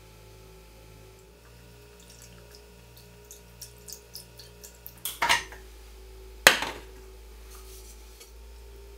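Milk poured into a stainless steel saucepan, with a run of light ticks and drips, then two sharp knocks about a second apart, the second the louder, as the pan and carton are handled and set down.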